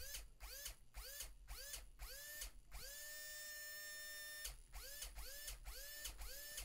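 Airsoft gun motor spinning freely with no load, switched through a T238 trigger-switch MOSFET: quick bursts of about two and a half a second, each a whine rising in pitch and cut off abruptly, with one longer steady run of about a second and a half in the middle. The sharp stops are the MOSFET's active braking halting the motor at once on trigger release.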